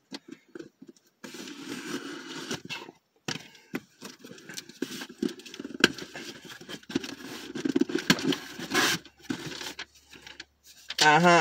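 Box cutter cutting open a cardboard shipping box, which is then handled: irregular scraping, scratching and crackling, with one sharper, louder scrape about three-quarters of the way through.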